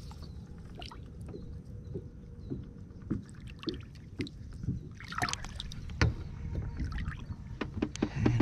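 Shallow water splashing and sloshing as a hand holds a bass in the grassy margin beside a kayak and releases it. There is a louder splash about five seconds in and scattered small knocks, over a low steady rumble.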